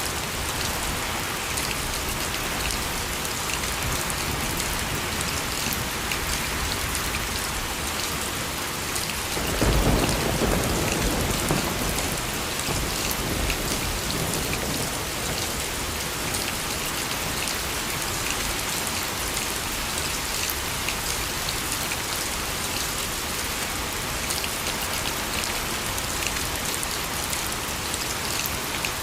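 Steady rain falling, with one low rumble of thunder about ten seconds in that swells and fades over two to three seconds.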